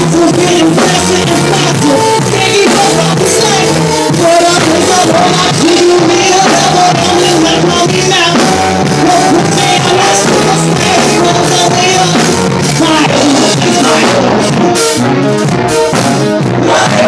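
Band playing rock-style music on a drum kit and other instruments, with held melodic notes over a steady beat.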